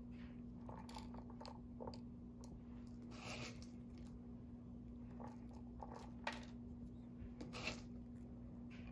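Faint crunching and rattling of crushed Milk-Bone dog biscuit pieces being scooped by hand from a small plastic bowl, in short scattered bursts. A steady low hum runs underneath.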